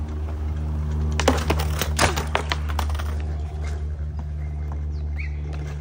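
Skateboard on concrete: a cluster of sharp clacks and slaps, the tail popping and the board hitting the ground, starting about a second in and lasting about two seconds. A steady low hum runs underneath.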